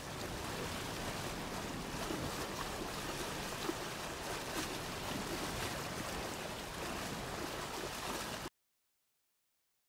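Steady rush of sea surf washing against a rocky shore, cutting off suddenly near the end.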